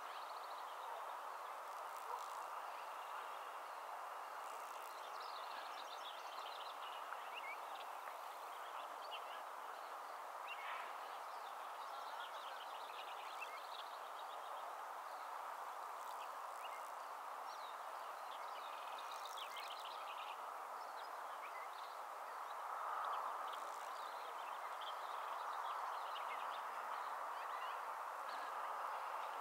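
Steady outdoor background noise with scattered faint, short, high chirps and calls from small animals.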